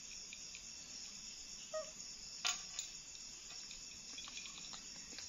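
Steady high chirring of crickets, with a short squeak a little under two seconds in and a sharp click about half a second later.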